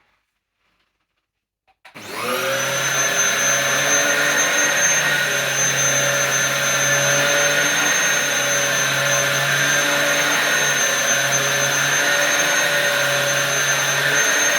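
Dyson DC07 upright vacuum cleaner switched on about two seconds in, its motor spinning up and then running steadily with a high whine while it vacuums short-pile carpet.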